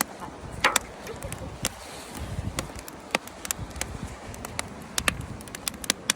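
Campfire crackling: burning wood gives irregular sharp pops and snaps over a steady rushing noise, with louder snaps about a second in and again near the end.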